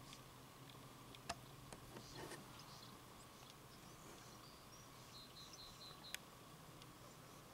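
Near silence with faint birds chirping in short quick runs of high notes, two sharp clicks, and a faint steady hum underneath.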